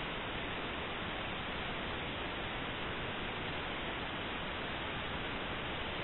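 Steady, even hiss with nothing else in it: the recording's own background noise.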